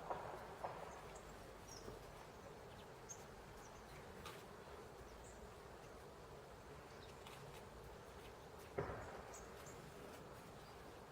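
Faint, short, high bird call notes here and there over a soft hiss, with a few soft knocks, the loudest one near the end.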